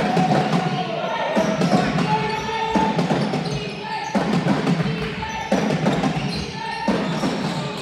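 Basketballs bouncing on a hard court floor, many irregular thuds, over music with a regular beat.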